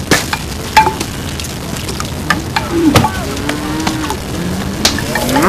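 Open wood fire crackling: sharp pops scattered over a steady hiss.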